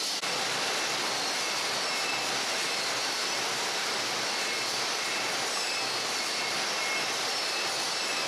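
Steady din of a wooden-crate production line running: machines and conveyors making a dense, even noise, with faint high whines that come and go.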